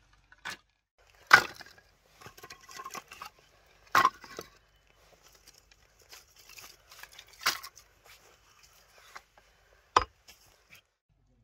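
Split kindling sticks clattering and knocking together as they are gathered and laid into a wicker basket. Four sharp wooden knocks come about every three seconds, the last and deepest a hatchet set into the chopping block.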